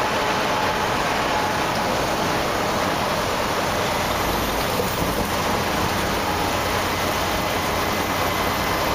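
Steady road and engine noise inside a semi-truck's cab while it drives along the highway.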